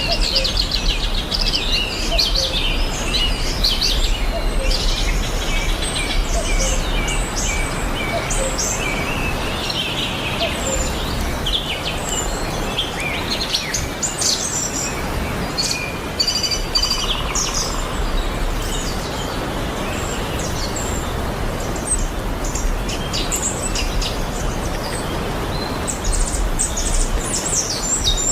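Several small birds chirping and singing in a busy, overlapping chorus of short calls and trills, over a steady background hiss.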